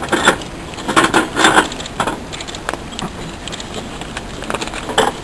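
Sheets of paper being shuffled and handled close to the microphones: short rustling bursts through the first two seconds and once more near the end.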